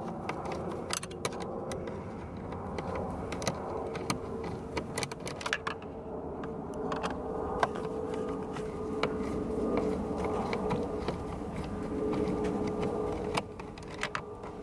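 Irregular small clicks and scrapes of a Phillips screwdriver working two screws out of plastic dash trim through the coin-tray opening. A steady low hum sits underneath and stops near the end.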